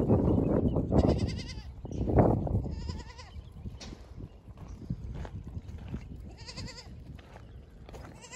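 A herd of goats bleating: three wavering, quavering calls about a second, three seconds and six and a half seconds in. Two louder rough bursts of noise come in the first two seconds or so.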